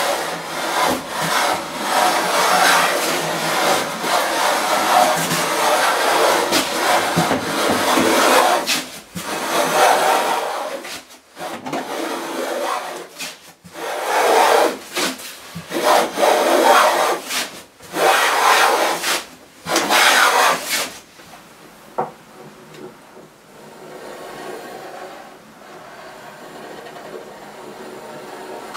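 Wooden hand plane shaving a softwood board, one hissing stroke after another. The strokes run together at first, then come as separate passes about a second long with short gaps. After about twenty seconds the sound drops to a much quieter level.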